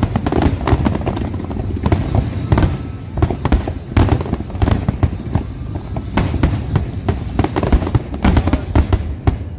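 Aerial fireworks display by Parente Fireworks: a dense, irregular barrage of sharp bangs and crackles, several a second, over a constant low rumble.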